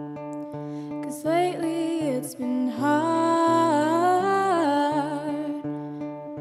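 A woman singing a held, sliding melody over strummed acoustic guitar chords. The voice comes in about a second in and drops out a little before the end, leaving the guitar strumming on its own.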